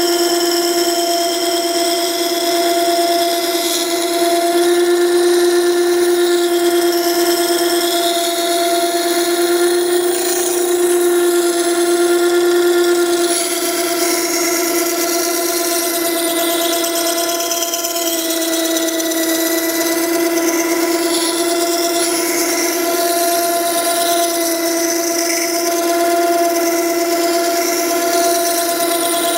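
Makita 9820 electric water-stone sharpener running with a steady whine while its 120-grit coarse wheel grinds a steel plane iron held in a jig, with a scraping hiss over the motor tone. The iron's bevel is being rough-ground back toward 25 degrees.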